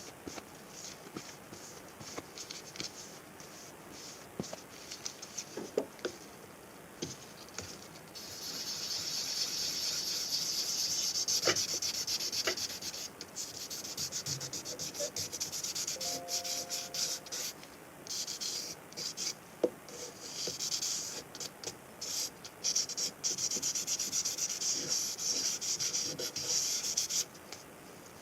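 Wet sanding with waterproof sandpaper: paper rubbing and scratching over a fork's surface. Light, scattered strokes give way about eight seconds in to steady, dense rasping, then rapid back-and-forth strokes that stop shortly before the end.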